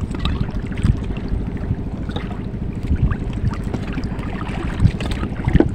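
Steady low rumble of wind and water around a small boat at sea.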